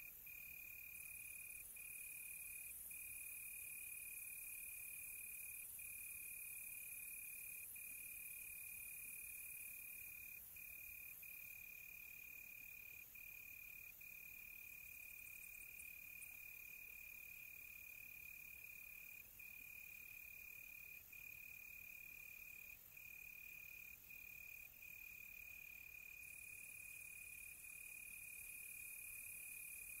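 Crickets trilling in one faint, steady high-pitched tone, broken by brief gaps every second or two, over a soft high hiss.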